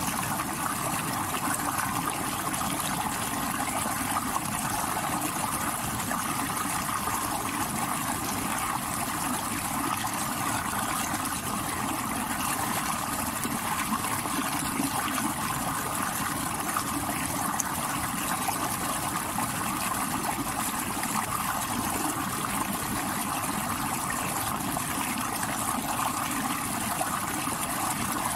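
Stream water rushing over rocks in a steady, even rush.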